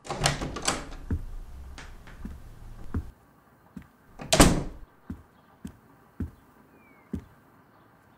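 Wooden front door: clicks and knocks of the handle and lock as it opens, then shut with a loud thud about four and a half seconds in, followed by four footsteps on a hard floor.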